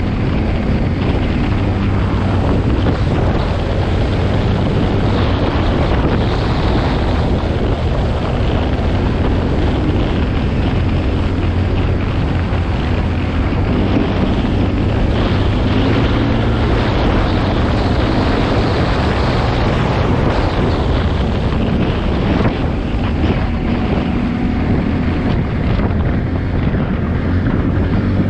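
ATV engine running steadily under way, its note shifting slightly now and then, with wind noise on the microphone.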